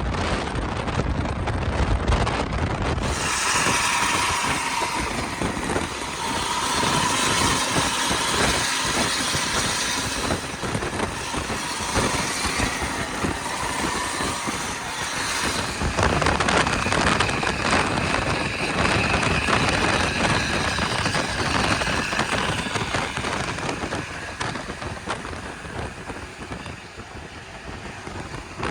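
Buses on the move: engine and road noise, with steady high tones running over it from about three seconds in, dying away near the end.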